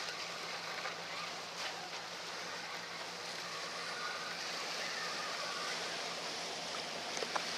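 Steady wash of sea surf against the breakwater's concrete tetrapods.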